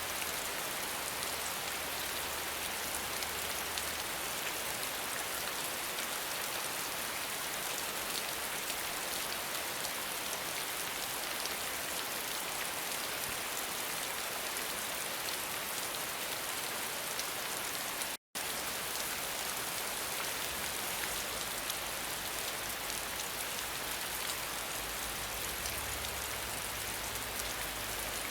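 Steady, even rainfall with dense drops. It cuts out completely for an instant about two-thirds of the way through.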